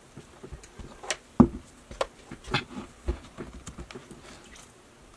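Plastic clicks and knocks from a personal blender's cup being lifted off the motor base and its blade base twisted off, with one sharper knock about a second and a half in.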